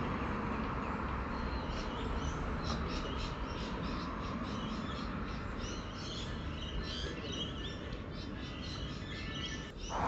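Many small birds chirping in rapid, overlapping calls over a steady low hum, with a brief drop-out just before the end.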